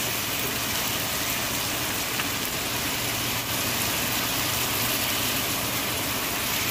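Purslane and Chinese sausage sizzling steadily as they stir-fry in a pan, over a steady low hum.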